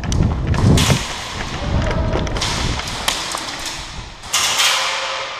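Thuds and rustling from a player moving fast with a body-worn camera, with sharp clicks and several short hissy bursts, the loudest about four and a half seconds in.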